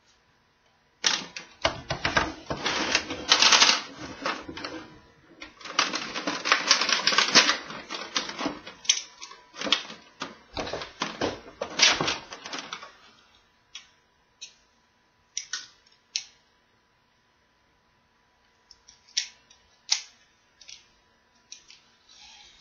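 Rapid clicking and clattering of hard plastic toy power tools being handled and set into a plastic tray, dense for about twelve seconds, then scattered single clicks.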